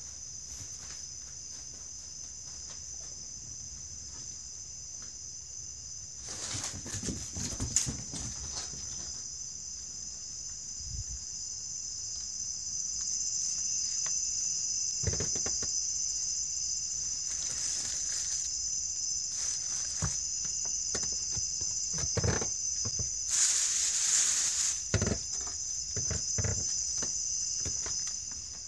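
Steady, high-pitched insect chorus like crickets chirring, growing louder about halfway through, with scattered soft knocks and rustles.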